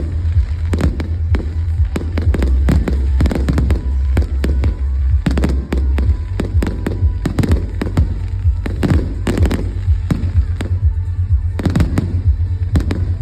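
Fireworks display: aerial shells bursting in quick succession, many sharp bangs and crackles one after another, over a steady low rumble.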